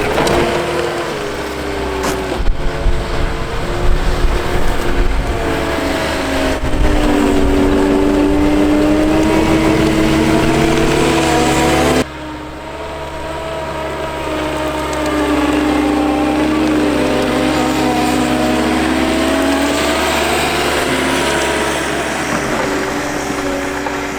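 Heavy equipment engine working under load as snow is plowed, its pitch rising and falling with the revs. The sound changes abruptly about halfway through.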